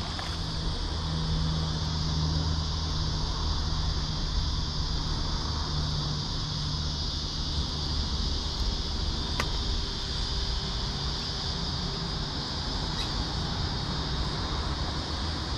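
Steady high chirring of insects, with a low steady hum of traffic beneath it.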